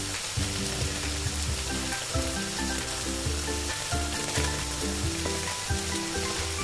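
Chopped onions sizzling and crackling in hot oil in a frying pan as they begin to sauté. Background music with changing notes plays underneath.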